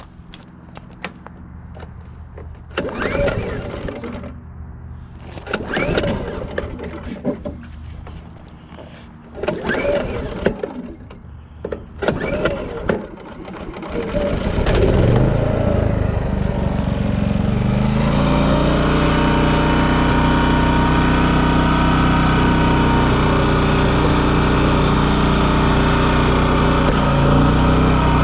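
Champion 4000-watt digital hybrid inverter generator being started: four short starting attempts in the first half, then the engine catches about fourteen seconds in, rises, and settles into steady running by about eighteen seconds.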